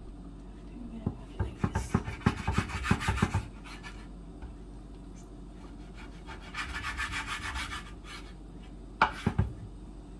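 Chef's knife slicing raw pork on a bamboo cutting board. It makes two spells of quick rasping back-and-forth strokes, the first about a second in and the second past the middle, with the blade knocking the wood, then a few sharp knocks of the blade on the board near the end.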